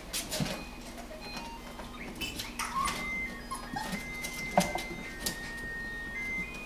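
Golden retriever puppies scrambling on a plastic slide and toys: scattered clicks and knocks, with one louder thump about halfway through. From about three seconds in, a simple electronic tune of high single notes plays.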